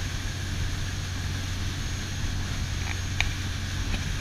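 A motor boat's engine running steadily under way, a low hum under the rush of water and wake along the hull, with a faint click or two near the end.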